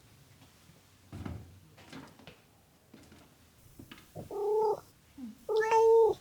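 A domestic cat meowing twice in the second half, two drawn-out meows about a second apart. The second meow is the louder and longer.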